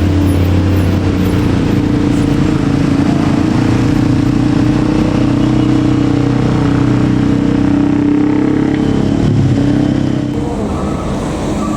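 Tour bus diesel engine running steadily under load as it climbs a hill close by, easing off a little near the end.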